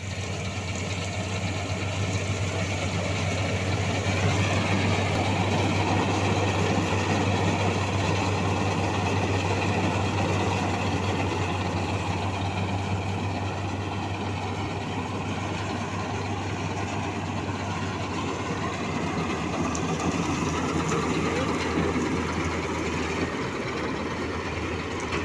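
Preet 987 combine harvester running steadily under load as it cuts and threshes a standing crop: its engine and threshing machinery make a continuous mechanical noise over a strong, steady low hum. The low hum weakens near the end as the machine passes by.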